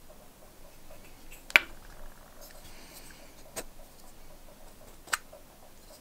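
Three sharp clicks of small metal lighter parts being handled, the first by far the loudest, with faint rustling of fingers between them.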